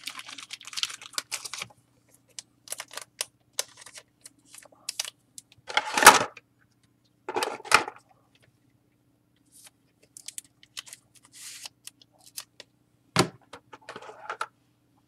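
Trading cards being handled by hand: scattered small clicks and scrapes, with a few sharper knocks, the loudest about six seconds in and another about thirteen seconds in.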